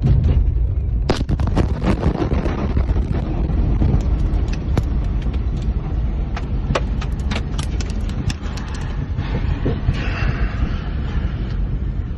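Heavy low rumble from the explosions and fire at the Beirut port warehouse, with many sharp cracks and pops scattered throughout, like smaller secondary explosions. It comes in suddenly and loudly.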